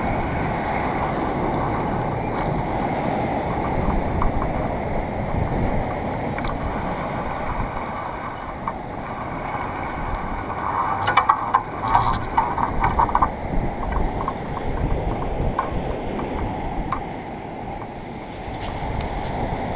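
Sea surf breaking and washing over rocks, with wind rumbling on the microphone. A short run of rapid clicks and rattles comes about halfway through.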